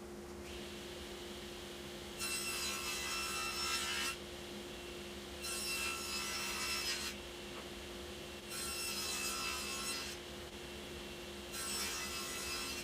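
Table saw running steadily, making four separate cuts into walnut plywood to form slots. Each cut lasts about a second and a half to two seconds and rises well above the motor's steady hum.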